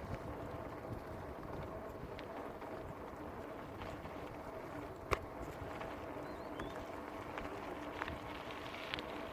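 Mountain bike being ridden on a dirt track, with steady rolling noise, a faint hum, and wind buffeting the microphone. A sharp click comes about five seconds in.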